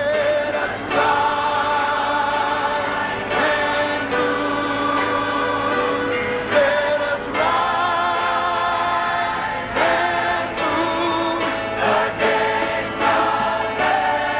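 Large choir singing a gospel song in long held chords, with a male soloist singing into a handheld microphone.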